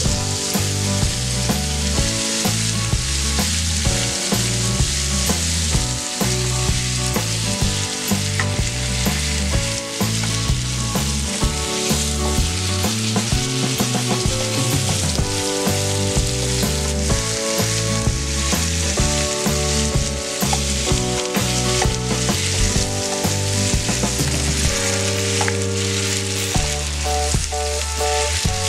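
Vegetables sizzling in hot oil in a nonstick wok as they are stir-fried, the spatula stirring them through the pan. The sizzle is a steady hiss throughout.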